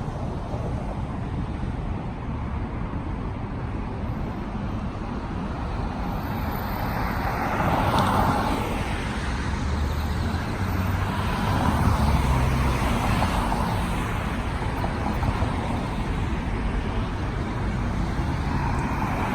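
Road traffic: a steady hum of cars, with louder vehicles passing about eight and twelve seconds in.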